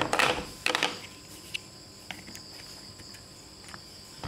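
Large plastic toy building blocks clattering and clicking as they are handled and pressed together, loudest right at the start and again just under a second in, then a few light clicks. A steady high-pitched whine runs underneath throughout.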